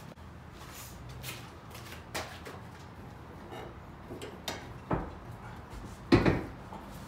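Rear seat of a 2-door Jeep Wrangler being unclipped and worked loose: scattered clicks, rattles and knocks from its metal latch bars and frame, with one louder thump a little after six seconds.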